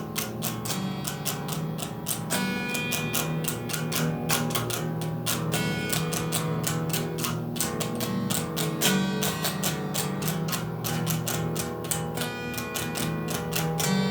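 Guitar-led band music with a steady beat, an instrumental passage without vocals.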